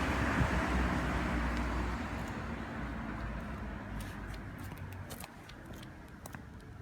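A passing car's road noise fading steadily as it moves away, followed by a scatter of light, sharp clicks over the last few seconds.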